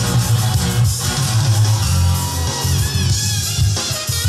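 Rock music with guitar and drums playing back from a cassette on a Nakamichi DR-2 deck, whose replacement motor's tape speed is being trimmed by ear with a potentiometer until the pitch sounds right.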